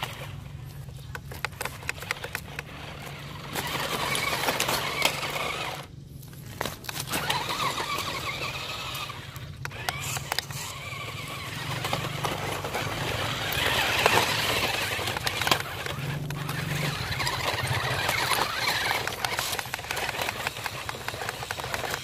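Toy 4x4 RC rock crawler's electric motors and plastic gearboxes whining, the pitch rising and falling with the throttle and dropping out briefly a couple of times, with frequent clicks and clatters of its wheels and body against broken concrete and brick.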